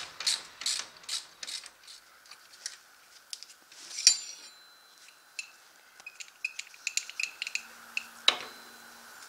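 Hand ratchet clicking in steady strokes, about two or three a second, as it backs out a 15 mm brake caliper bolt; the clicking stops about two seconds in. Scattered light metal ticks and clinks follow as the bolts and caliper are handled, with a sharper ringing clink about four seconds in and a knock near the end.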